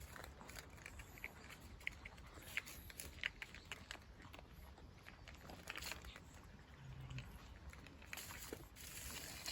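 Cats eating dry cat food: a scatter of short, crisp crunches of kibble being chewed.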